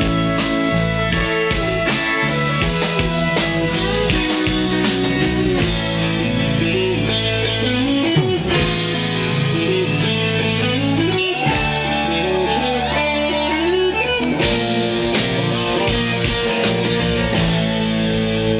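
Live country-rock band playing an instrumental passage on guitars and drum kit, with a lead line of sliding, bending notes over the chords.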